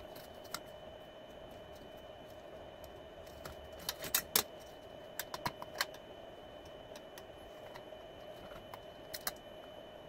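Small metal clicks and taps from a slim DVD drive's sheet-metal case and its screws being handled, in a few short clusters about four, five and a half, and nine seconds in, over a faint steady hum.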